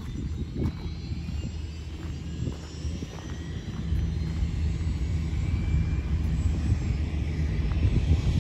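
Light turbine helicopter running on the ground: a steady rotor rumble with a turbine whine that rises in pitch, growing louder about halfway through.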